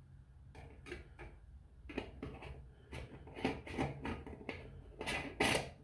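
Fill cap being fitted and screwed onto the reservoir of a one-shot lube pump: a string of short clicks and scrapes, the loudest near the end, over a faint steady low hum.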